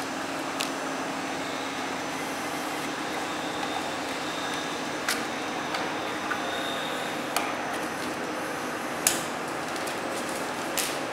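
Light clicks and knocks of a film roll on its metal shaft and plastic end holders being handled and seated in a tray sealer's roll mount, the sharpest about nine seconds in, over a steady background hiss.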